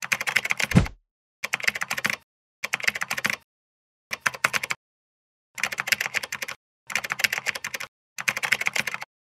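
Computer-keyboard typing sound effect: seven short bursts of rapid key clicks with pauses between them, with a low falling thud about a second in.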